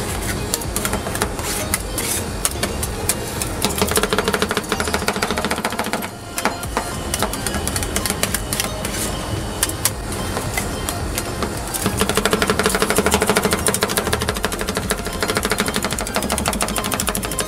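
Two steel spatulas chopping rapidly on the steel cold plate of a rolled-ice-cream machine, a fast clatter of metal-on-metal taps as the liquid mix is chopped and mixed while it freezes. The clatter pauses briefly about six seconds in.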